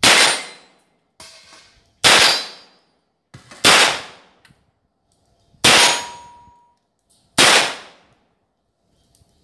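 Five single shots from a Taurus M83 .38 Special revolver, fired steadily about two seconds apart, each a sharp report that dies away within half a second.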